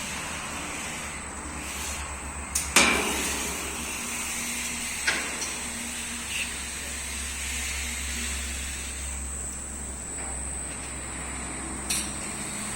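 Net washing machine running steadily with a low hum and a high whine. A few sharp knocks or clanks sound over it, the loudest about three seconds in.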